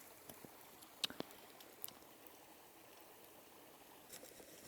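Near silence with a few faint, short clicks and taps about a second in and again near two seconds.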